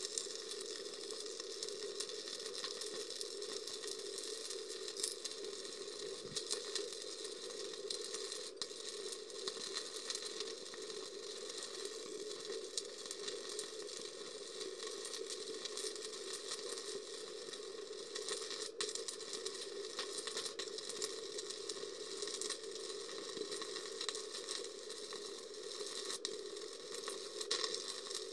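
Stick (MMA) welding arc crackling and sizzling steadily as an electrode burns along a bead on thick steel.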